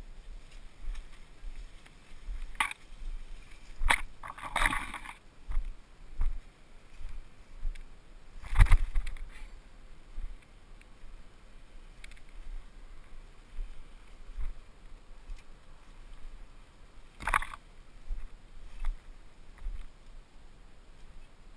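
Mountain bike pushed by hand through dense undergrowth: leaves and branches brushing against the bike and rider, with occasional knocks and rattles from the bike. The loudest knock comes about eight and a half seconds in, with a burst of rustling around four to five seconds in and another knock near seventeen seconds.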